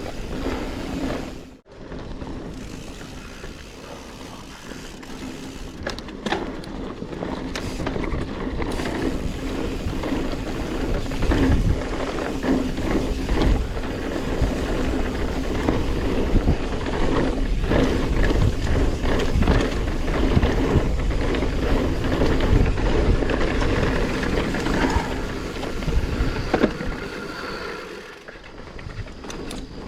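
A Specialized Stumpjumper Evo Alloy mountain bike riding fast over rough, rocky singletrack: tyre noise on dirt and rock, with the bike rattling and clattering irregularly over the bumps.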